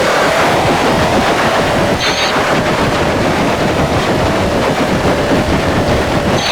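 Harsh noise music: a loud, unbroken wall of distorted, crackling static with a faint wavering tone inside it and brief high-pitched tones about two seconds in and again near the end.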